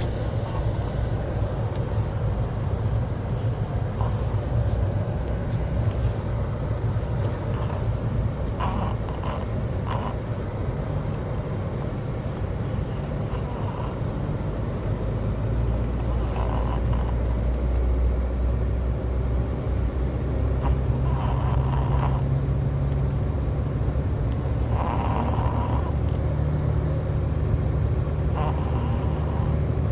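A small dog snoring in her sleep, a snore every few seconds, over a steady low rumble.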